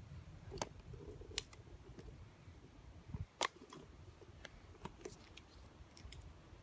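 Yu-Gi-Oh trading cards being handled: a scattering of faint clicks and taps over a low room rumble, the sharpest about three and a half seconds in.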